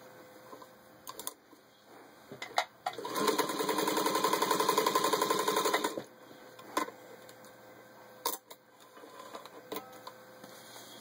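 Singer 221 Featherweight sewing machine stitching through four layers of denim, a fast, even clatter of the needle that starts about three seconds in and stops about three seconds later. A few sharp clicks come before and after the run.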